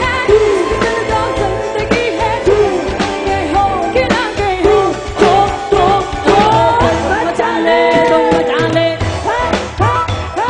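A live band playing a song with a lead singer, over a steady drum beat and bass.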